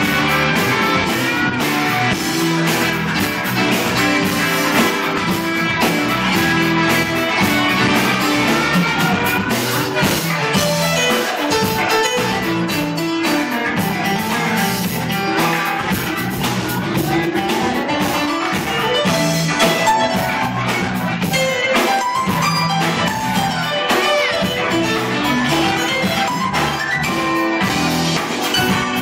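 A live band playing: electric guitar over bass and drum kit.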